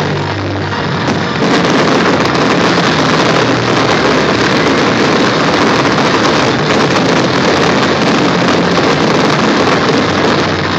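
A dense fireworks barrage: many shells and crackling stars bursting in quick succession, merging into one continuous loud crackle and boom that grows louder about a second and a half in.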